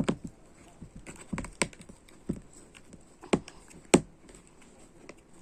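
Slime being mixed by hand: scattered sharp clicks and taps at irregular spacing, about eight of them, the loudest near the end.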